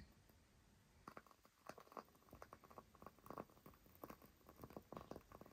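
Near silence with faint, irregular small clicks and taps.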